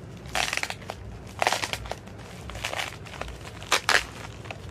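Bubble wrap around a small package crinkling as it is handled, in about four short bursts.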